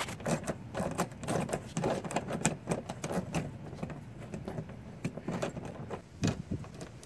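Hand ratchet with a 7 mm socket clicking in quick runs as it backs out a small bumper-cover bolt. The clicking thins out near the end, with one sharper click.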